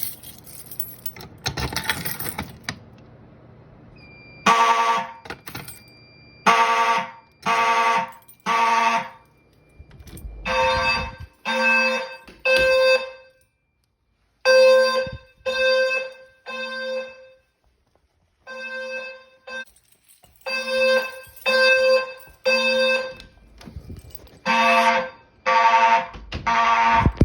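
Fire alarm horns sounding a buzzy, pitched tone in the temporal-three evacuation pattern: three blasts about a second apart, a pause, then three again, starting about four seconds in after a short burst of noise.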